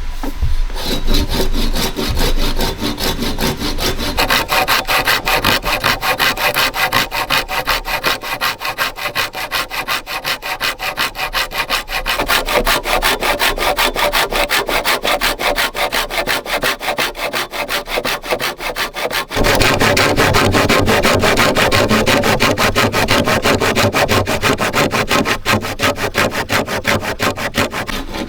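A saw cutting through bamboo in quick, even, repeated strokes. The sawing gets louder and fuller about nineteen seconds in.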